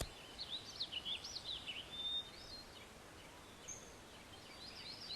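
Faint birdsong: quick, high chirps twittering for the first two seconds, then only a few scattered chirps.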